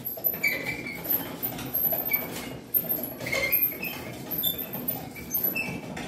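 Hand crank of a rope block-and-tackle pulley hoist being wound to lift a shelved rack out of a chest freezer, with the pulleys and crank giving short squeaks and clicks, repeated irregularly.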